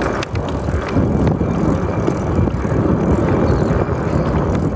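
A bike being ridden on a wet road, with wind rumbling on the microphone as it moves, and a couple of sharp clicks near the start.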